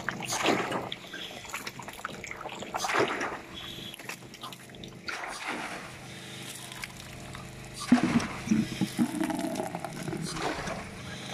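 Water running and splashing from the standpipe overflow and the test tank of a Bunyip PA13 water-powered pump, swelling louder about every two and a half seconds, with a stream of pumped water pouring from the outlet fitting.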